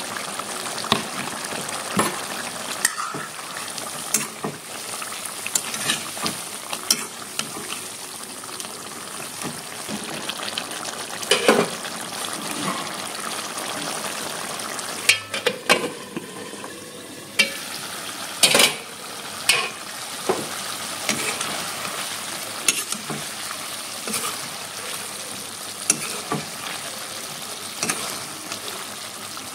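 Chicken curry sizzling in an iron kadai, with a metal ladle stirring it, clinking and scraping against the pan in irregular knocks.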